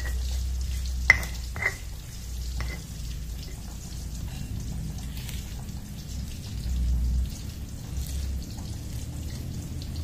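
Stone pestle (ulekan) grinding and scraping anchovy chilli paste on a stone mortar (cobek), a steady rough grinding with a few sharp stone-on-stone knocks in the first three seconds.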